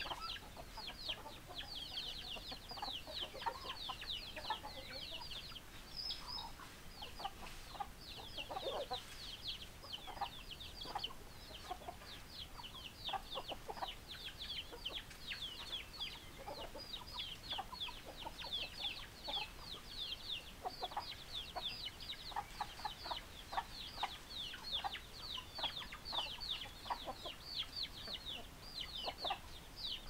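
A flock of chickens: chicks peeping almost without pause in quick, high, falling notes, with hens clucking now and then beneath.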